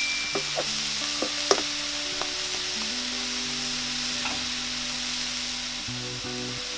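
Chopped cassia tora leaves and grated coconut sizzling in a non-stick wok. A wooden spoon scrapes and knocks against the pan several times in the first second or two, then only the steady frying hiss.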